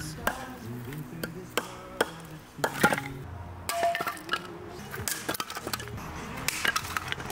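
Irregular knocks, clicks and clinks of objects being handled, a dozen or so at uneven intervals, with one short ping near the middle, over soft background music.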